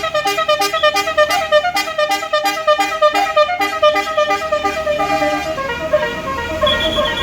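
An Indonesian tour bus's basuri multi-tone melody horn (telolet horn) plays a fast tune of short notes, about six or seven a second, over the bus engine's low steady hum. About five and a half seconds in, the quick run gives way to looser, more spaced notes.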